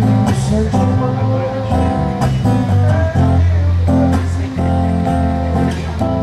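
Worship music without singing: an acoustic guitar strumming chords over a low bass line, the chords changing every second or so.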